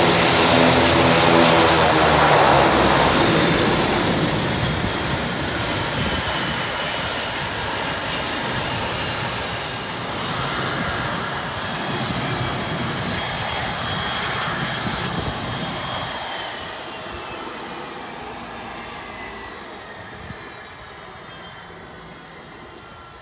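ATR 72 twin-turboprop's Pratt & Whitney PW127 engines spooling down after shutdown: the loud propeller drone fades within the first few seconds, leaving a high turbine whine that falls steadily in pitch and dies away.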